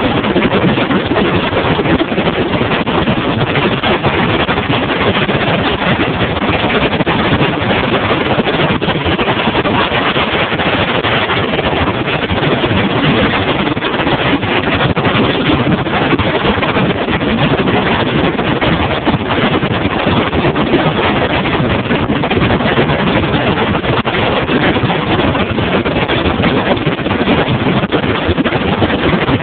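Bass boat underway on open water: a loud, steady rush of motor and water noise mixed with wind buffeting the phone's microphone.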